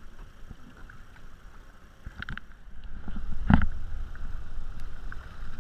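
Sea kayak paddling on open ocean: paddle blades dipping and water sloshing along the hull, with a low rumble that grows louder past the midpoint. A sharp thump stands out about three and a half seconds in.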